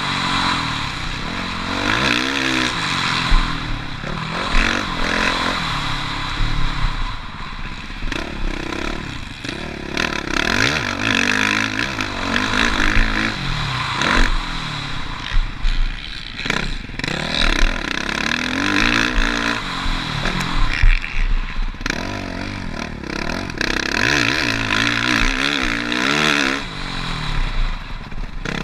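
Four-stroke single-cylinder engine of a Suzuki RM-Z450 motocross bike ridden hard around a track. It revs up and shuts off again and again, with a few sharp knocks and rattles.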